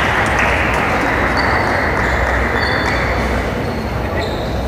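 Spectator crowd murmuring in a large sports hall as applause dies away, with a few short high-pitched pings.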